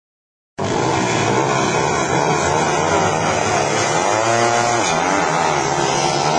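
A pack of junior speedway motorcycles racing, engines loud and revving, pitch rising and falling as the riders work the throttle. The sound cuts in suddenly about half a second in.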